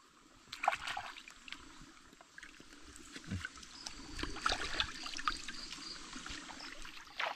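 Faint trickling water with scattered small clicks and knocks.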